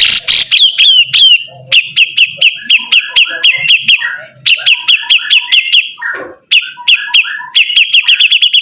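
Sibuntung songbird in full song: a loud, fast run of sharp chirps with lower notes mixed in, broken by a couple of brief pauses and quickening to a rapid trill near the end.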